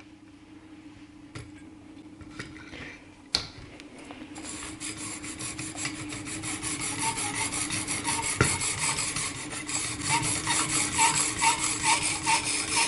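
Steel knife edge being stroked across a fairly new 800-grit diamond sharpening plate on a fixed-angle sharpener: a rhythmic scraping rasp of about two strokes a second, getting steadily louder. It starts a few seconds in, after a few light clicks. The plate is aggressive and cuts coarsely, close to a 400 grit.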